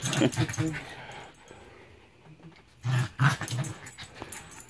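Yorkshire terrier growling in play while roughhousing with a person's hand, in two short bouts: one at the start and another about three seconds in.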